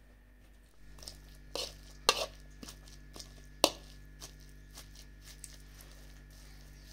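Metal masher pounding the meat, chickpeas and potato of dizi (abgoosht) in a bowl: sharp clinks of metal against the bowl, loudest about two seconds in and again after three and a half seconds, with softer mashing between.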